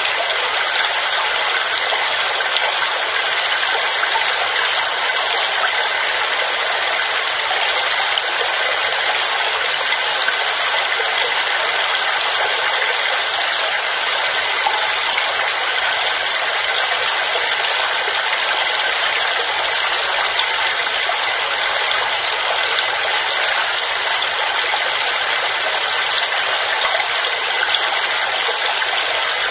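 Waterfall: falling water rushing steadily in an even, unchanging hiss, with little deep rumble.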